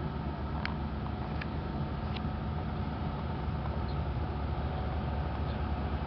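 Boat's diesel engine running steadily as the boat passes through the bridge opening: a low drone that grows slightly louder. A few faint high chirps sound in the first two seconds.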